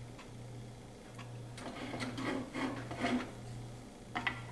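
Wooden spoon stirring and scraping a stainless steel saucepan of hot sugar syrup, a quick run of scrapes and knocks about halfway through. Under it, a low hum cuts in and out.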